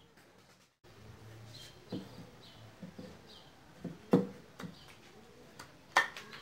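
Pieces of wood being handled and set down on a plywood worktop: a few sharp wooden knocks, the loudest about four seconds in and near the end. Faint bird chirps can be heard behind them.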